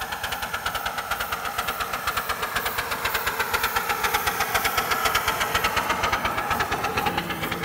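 A 7¼-inch gauge miniature steam locomotive passing close by at speed, its exhaust beating in a rapid, even chuff of about eight beats a second. It grows louder as it goes by and eases off near the end as the coaches follow.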